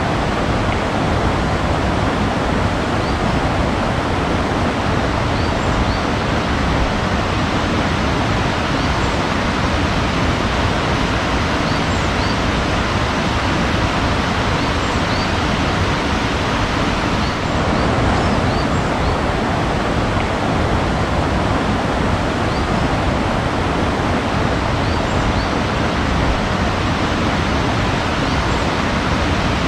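Steady rushing water, like a waterfall or fast stream, with small birds chirping faintly in the background.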